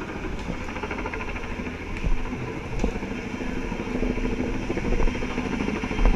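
Helicopter engine and rotor running steadily overhead, with a few short thumps.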